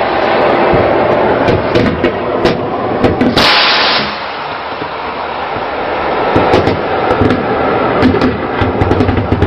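Naval gunfire: sharp shots and cracks over a steady rush of noise, with a louder blast about three and a half seconds in.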